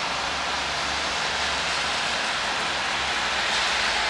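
Steady hiss of rain falling on a wet street, mixed with the swish of traffic on the wet road, growing a little louder near the end.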